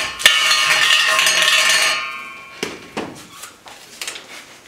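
Lots being stirred inside a silver metal trophy cup: a sharp clink, then about two seconds of rattling and clinking with the metal bowl ringing, fading into a few scattered light clicks.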